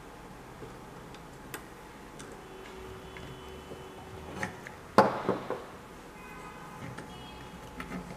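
Clicks and light rattles of a resin 3D printer's sheet-metal housing and cables being handled, with one sharp knock about five seconds in and two smaller knocks just after it.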